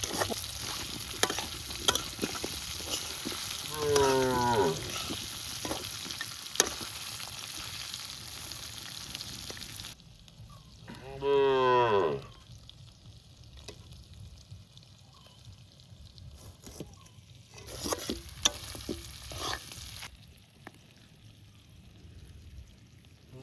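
Pork and gourd curry sizzling in a pan while a spoon scrapes and clicks against it as it is stirred; the sizzling stops abruptly about ten seconds in. A cow moos in falling calls, once about four seconds in and louder around eleven seconds.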